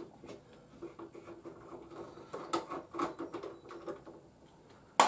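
Small clicks and scrapes of hand tools and fingers working the Torx bolts out of a motorcycle's plastic tank panel, ending in a sharp metallic clink.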